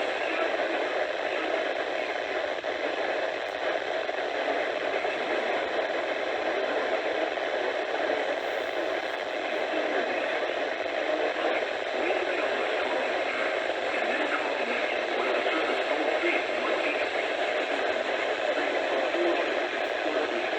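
Steady radio static from a weather radio receiver tuned to a weak, distant NOAA Weather Radio signal: an even hiss with no clear voice coming through.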